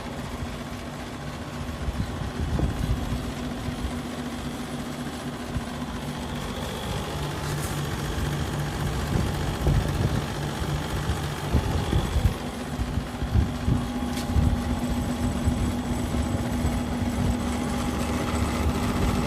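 Newly fitted refrigeration compressor running with a steady hum, with irregular low knocks and handling noises over it.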